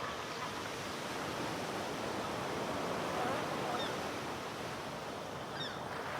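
Steady wash of ocean water noise, with a few faint short high chirps near the middle and end.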